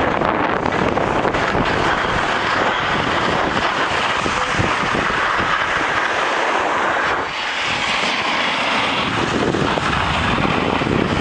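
Steady rushing noise of wind on the microphone and snow scraping as the camera operator slides down the piste, with a brief dip about seven seconds in.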